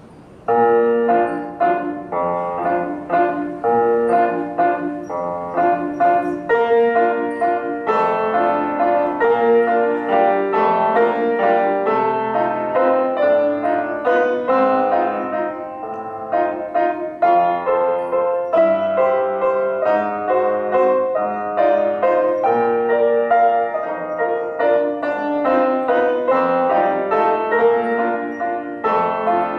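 Upright piano being played, a piece starting about half a second in and running on in a steady stream of notes.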